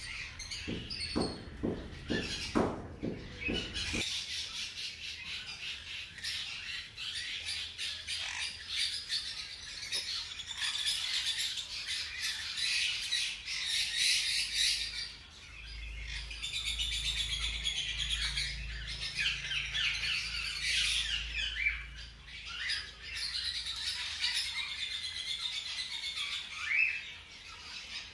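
Newborn hamster pups squeaking: a dense, continuous chatter of short high-pitched squeaks, with a run of low thumps in the first few seconds.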